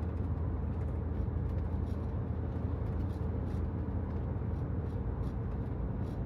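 Motor vehicle on the move: a steady low engine and road rumble.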